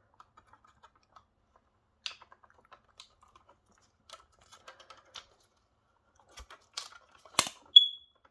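Small plastic clicks and scratches of fingers working at a smoke alarm's battery pull tab, then a sharp click near the end followed by a single short high-pitched chirp from the First Alert smoke alarm. The chirp sounds like a low-battery warning, given while the pull tab still keeps the 9-volt backup battery disconnected.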